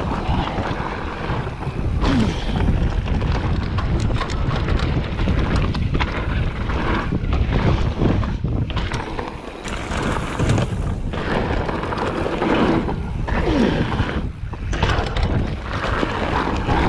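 Wind buffeting the microphone of a moving mountain bike, over tyres rolling on a dirt trail and many short knocks and rattles from the bike running over bumps.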